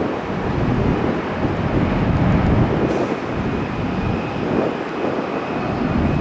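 Jet engines of an Air Canada Rouge Airbus A320-family airliner climbing out after takeoff: a loud, steady, rough jet noise, with a faint high whine joining about halfway through.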